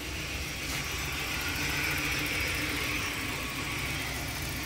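BMW E36's M43 four-cylinder engine idling steadily on a freshly swapped tuned ECU chip.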